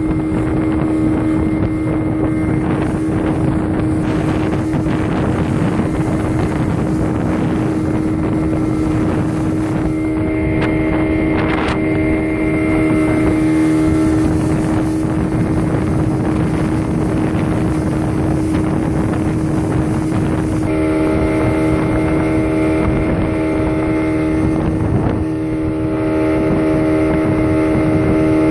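Speedboat engine running steadily at speed, a constant droning hum with the rush of the hull through the water, and wind buffeting the microphone.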